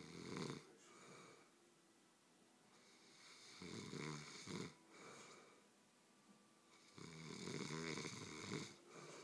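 Slow, regular snoring: three snores about three and a half seconds apart, each followed by a shorter, softer breath.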